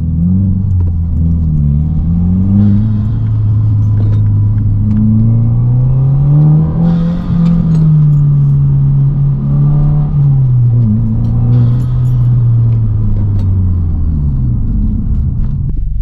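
Subaru WRX's 2.4-litre turbocharged flat-four, heard from inside the cabin while driving, its revs climbing and falling several times as the car accelerates and is shifted through the gears.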